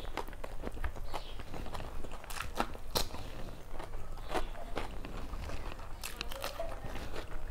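Close-miked eating sounds: chewing and mouth smacking with irregular wet clicks and crunches, a sharper crunch about three seconds in.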